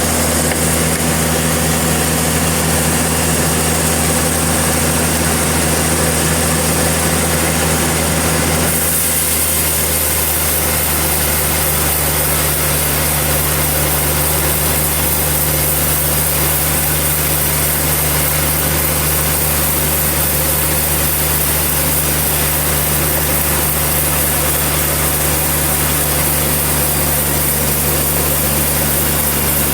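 Portable sawmill's engine running steadily, with an abrupt shift in its sound about nine seconds in.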